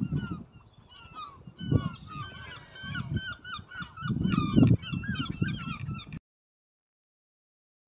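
A flock of geese honking, many short calls overlapping, over low buffeting rumbles. The sound cuts off to silence about six seconds in.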